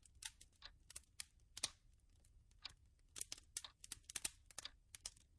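Faint irregular clicking, a few clicks a second, like light typing on a keyboard.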